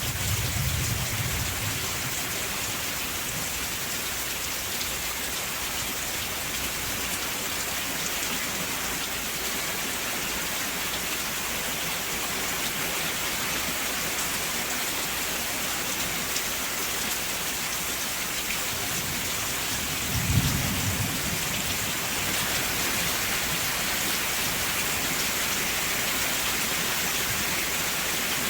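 Steady rain falling, a dense even hiss, with low rolls of thunder: a short one at the start and a louder one about twenty seconds in.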